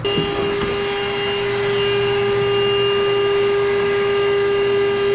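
An electric motor running at a steady speed with a constant whine over a rushing hiss. It starts abruptly.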